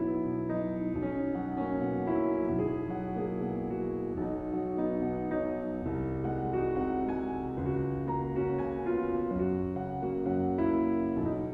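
Background piano music, slow overlapping notes and chords.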